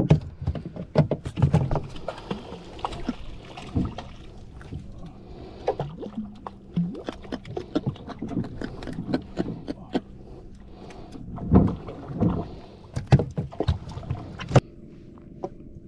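Irregular knocks and clatter aboard a small fishing boat, over steady background noise. The sound cuts off suddenly near the end.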